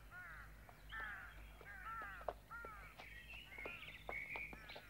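Faint bird calls in a forest ambience: a string of short calls that slide downward in pitch, several overlapping, mixed with sharp chirps.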